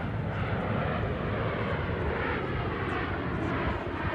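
Formation of Canadian Forces Snowbirds CT-114 Tutor jets, each with a single turbojet, flying overhead: a steady jet engine noise with no breaks.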